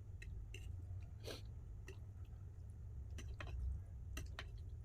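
Close-up chewing and wet mouth sounds of someone eating shirataki noodles, with scattered soft clicks and smacks over a steady low hum.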